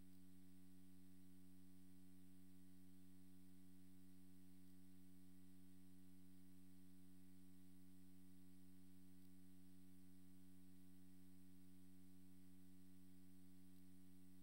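Near silence with a steady low hum of several even tones that never changes.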